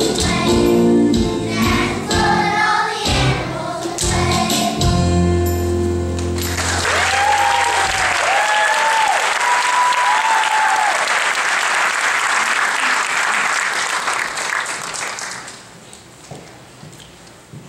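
A choir singing with accompaniment finishes about six seconds in, then the audience applauds, with a few voices calling out over the clapping; the applause dies down near the end.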